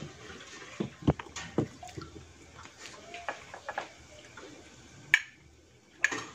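Metal spoon tossing a vinegar-dressed salad of shredded cabbage, cucumber and bitter gourd in a glass baking dish: rustling of the vegetables with scattered clicks and knocks of the spoon against the glass, the sharpest about five seconds in.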